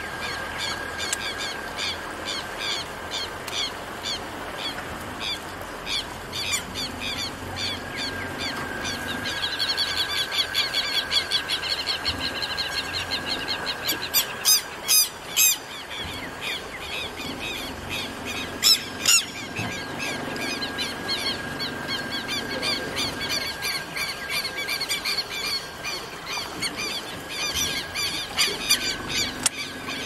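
Outdoor ambience of many birds calling in a dense, continuous chorus of rapid repeated high calls, over a steady high tone. A few louder, sharp calls stand out about halfway through.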